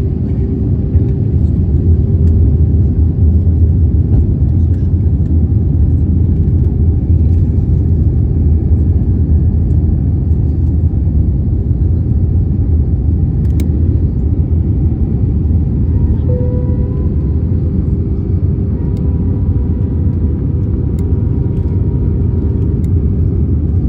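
Cabin noise of an Airbus A320-family airliner in flight with its flaps extended: a loud, steady low rumble of engines and rushing air heard from a window seat, with faint steady tones coming in about two-thirds of the way through.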